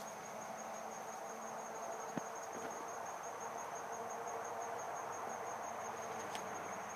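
Insects, crickets or similar, trilling steadily at a high pitch in the woods, over a low even hiss. One faint click comes about two seconds in.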